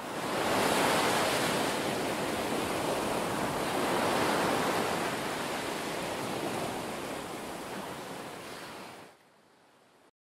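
Ocean surf washing, a steady rush of breaking waves that swells about a second in and again around four seconds, slowly fades, then drops away sharply about nine seconds in and stops.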